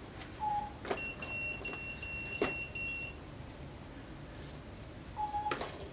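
A hoverboard's buzzer beeping: a short low beep, then a steady high-pitched beep lasting about two seconds, and another short low beep near the end. A few sharp knocks sound in between.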